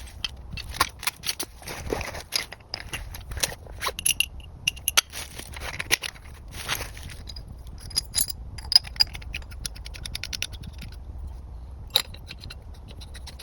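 Irregular clicks, snaps and short scrapes of wood and brush being handled, quieter near the end apart from one sharp click.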